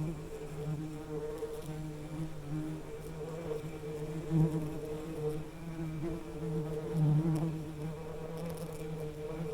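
Bees buzzing steadily, a low drone that swells and fades as they fly close and away, loudest twice, near the middle and about three quarters of the way through.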